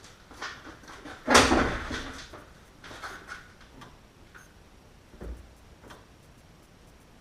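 A loud clunk of car door or latch hardware a little over a second in, dying away over about half a second, then a few light clicks and a dull thump just after five seconds.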